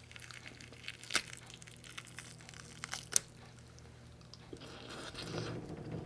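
Fingers pulling apart soft steamed cod roe, with scattered small ticks and two sharp clicks about one and three seconds in. Close-up chewing follows near the end.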